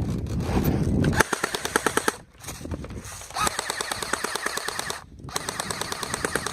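Airsoft gun firing on full auto: a rapid rattle of shots, many a second, in long bursts broken by two short pauses.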